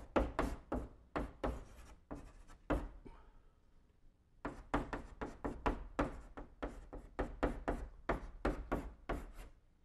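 Chalk on a blackboard writing characters: a quick run of short taps and scrapes, one per stroke, pausing briefly about three seconds in before a second run.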